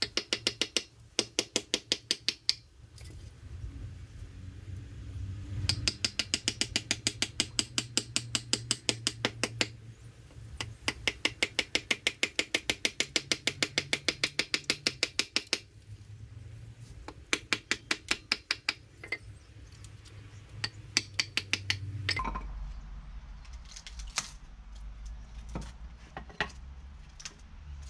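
Background music with a fast, even ticking beat of about eight ticks a second that comes and goes in runs, over a steady bass line that shifts down near the end.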